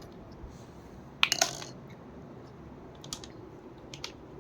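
Light clicks and clatters of small plastic toy kitchen pieces being handled and set down: a quick cluster about a second in, then single clicks near three and four seconds.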